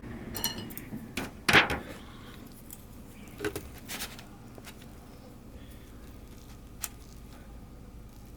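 Handling sounds: a few sharp clicks and knocks, the loudest about a second and a half in, then scattered lighter ones.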